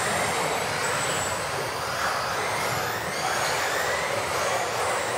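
Several radio-controlled off-road buggies racing together: their electric motors whine, the pitch gliding up and down as they speed up and brake, over a steady hiss of tyres on the carpet track.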